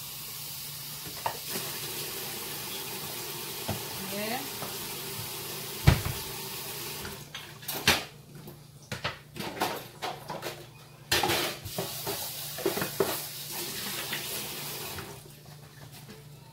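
Water running from the kitchen tap into the sink while lettuce is rinsed, with a sharp knock about six seconds in. The water stops about seven seconds in, followed by a series of clatters and knocks of a bowl and dishes being handled in the sink.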